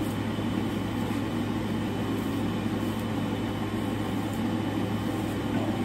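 Steady low mechanical hum of a ventilation fan, even and unchanging throughout.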